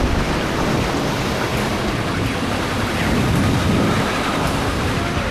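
Rough sea and strong wind around a sailing schooner under way: waves breaking and rushing along the hull in a steady, heavy rumbling roar, with wind buffeting the microphone.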